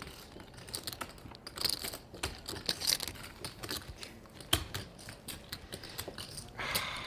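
Clay poker chips clicking together as they are handled and riffled at the table, a run of light irregular clicks with a few sharper ones.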